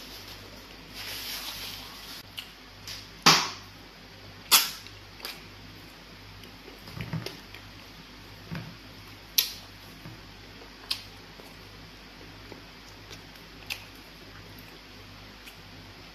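Close-miked mukbang eating sounds of a man eating pounded fufu and egusi soup by hand: wet lip smacks and mouth clicks while chewing, spaced a second or a few apart, the loudest about three, four and a half and nine seconds in, over a faint steady low hum.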